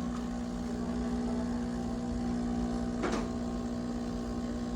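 De'Longhi Dedica Arte espresso machine running with a steady hum, with a short knock about three seconds in.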